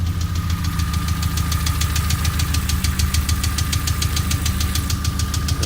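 VAZ 2112's 16-valve VAZ-21124 engine idling with a steady, rapid knock, about seven sharp ticks a second over the engine hum. The knock remains after new hydraulic lifters and an oil change, with idle oil pressure of only about 2 bar.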